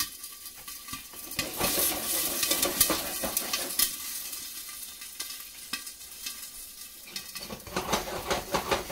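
Popcorn kernels that were soaked in water sizzling and spattering in hot oil under a glass pot lid, the extra moisture making it sound like frying. Scattered pops land as low thumps rather than high cracks, and the pot and lid knock about as it is shaken on the stove.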